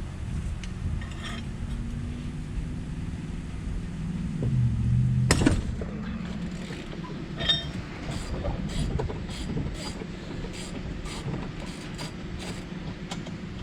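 Ratchet straining on a seized golf cart lug nut until the nut breaks loose with one loud, sudden crack about five seconds in. The ratchet then clicks about twice a second as the nut is worked off, over a low, steady engine rumble.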